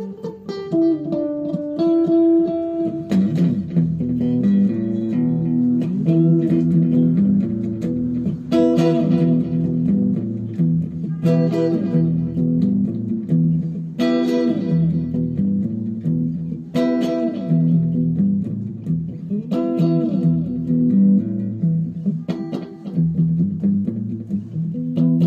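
Background music led by guitar over a bass line, with a strong accented chord about every two to three seconds.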